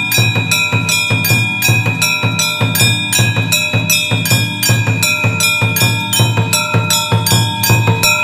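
Hindu aarti bells and percussion beaten in a fast, steady rhythm of about four strikes a second, with the bells' ringing tones held throughout.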